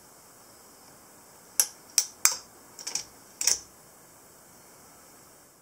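Lever action of a New Original Henry rifle being worked by hand with the receiver's side plate off: a quick run of about six sharp metallic clicks and clacks from the lever and toggle links, between about one and a half and three and a half seconds in.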